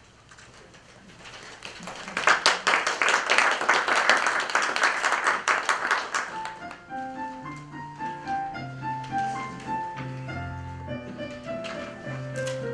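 Audience applauding for a few seconds, then about six seconds in a piano starts playing the introduction to a choral song, melody notes over held bass notes.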